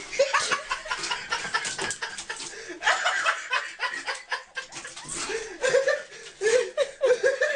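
People laughing and chuckling, with some talk mixed in.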